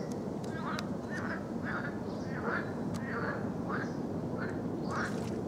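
Pond frog chorus: short croaks like duck quacks, repeating about twice a second over a steady low background noise.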